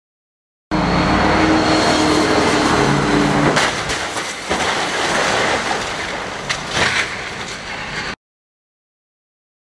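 A stunt car's engine revving hard, then a crash about three and a half seconds in as the car flips over on a wet road, with several loud impacts and scraping noise that fade before the sound cuts off abruptly.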